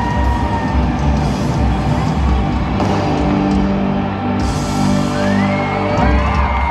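Live pop-rock concert music played through a stadium sound system, with a heavy pulsing bass and sustained melodic lines over it.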